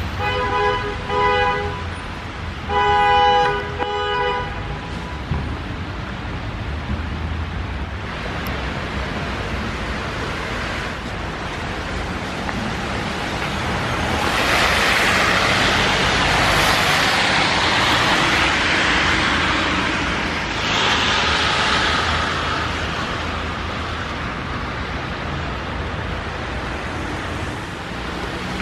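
Street traffic ambience with a steady low rumble. A car horn honks twice near the start, each honk about a second long. A louder hiss swells for several seconds in the middle.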